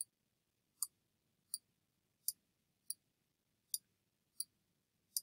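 Computer mouse button clicking faintly, about eight sharp clicks roughly three-quarters of a second apart, as drawing strokes are made one after another.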